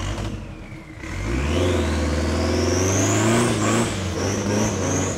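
Lifted off-road SUV's engine revving as it drives through mud. The engine dips briefly about a second in, then picks up again, with a thin whine that climbs steeply in pitch over the next two seconds and then holds high.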